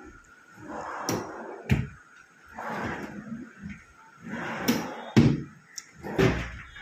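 Cabinet drawers on metal ball-bearing telescopic slides pulled out and pushed back about four times, each stroke a rolling swish that ends in a knock or click as the drawer stops; the sharpest knock comes about five seconds in.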